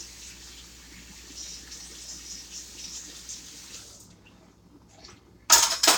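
Kitchen sink tap running as utensils are rinsed, shut off about four seconds in; a loud clatter follows near the end.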